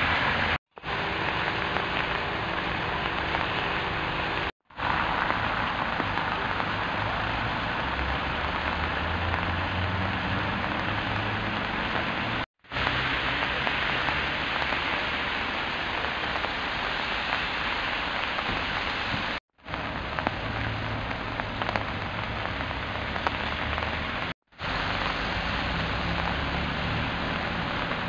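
Rain on a wet street: a steady rushing hiss with a low rumble underneath, cut to silence for a moment five times.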